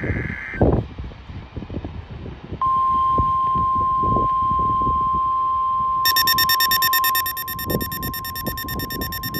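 NOAA Weather Radio test signal: a short high electronic data screech ends just after the start. About two and a half seconds in, the steady 1050 Hz warning alarm tone begins and holds, over a crackling background. About six seconds in, a rapid high electronic beeping joins it.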